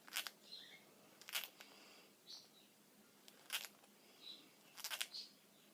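A pet making its happy noises: sharp clicks about every second or so, the last a quick double, with brief faint high squeaks between them.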